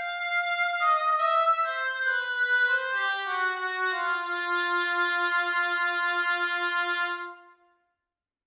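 Sampled orchestral woodwind from the Spitfire Studio Woodwinds library playing a single melodic line of notes that steps downward and settles on a long held low note. The held note fades out about seven and a half seconds in.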